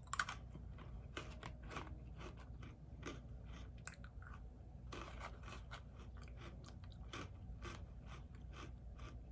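Close-miked eating sounds: a person chewing food with many small wet clicks and crisp crunches throughout.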